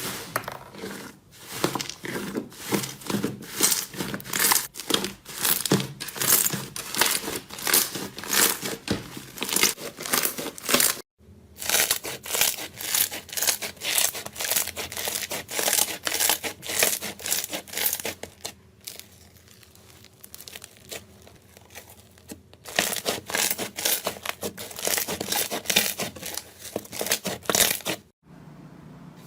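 Slime being squeezed, stretched and pressed by hand: a dense, fast run of sticky crackling and clicking, with a quieter stretch a little past the middle.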